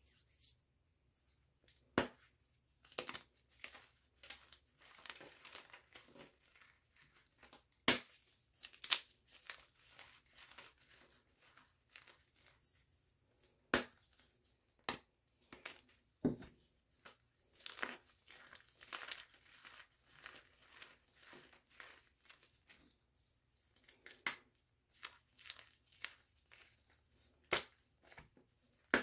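A block of Warm Body Cold Mind gym chalk dusted with brown Holi powder being broken and crushed by hand: irregular sharp cracks as it snaps apart, with softer gritty crumbling of the pieces between them.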